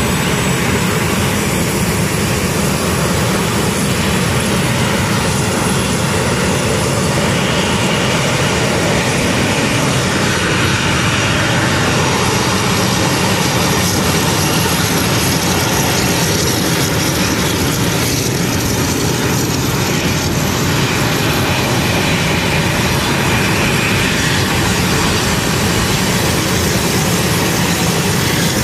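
A-10C Thunderbolt II attack jets' twin General Electric TF34 turbofan engines running as the aircraft taxi in a line: a loud, steady jet noise that holds even throughout.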